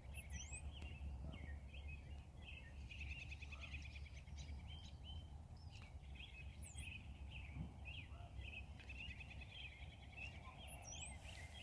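Small birds chirping and twittering without pause, with three higher, sharp calls standing out: near the start, about two-thirds through, and near the end. A steady low rumble runs underneath.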